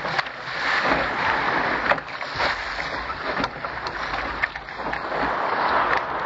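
Water rushing and splashing along the hull of a Contender sailing dinghy moving at speed through chop, with irregular sharp slaps of spray.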